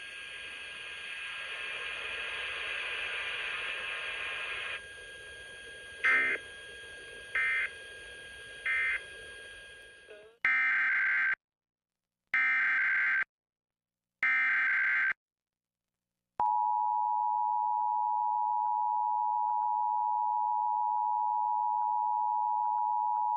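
Emergency Alert System test tones. After a stretch of hiss with three short beeps come three one-second screeching data bursts of the SAME header. After a brief silence, the steady two-tone attention signal sounds continuously.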